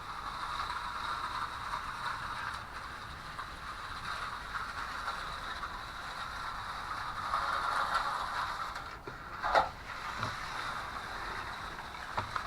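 A trowel scraping steadily back and forth across wet concrete as the slab is smoothed, louder for a stretch past the middle, with one sharp knock about two-thirds of the way through.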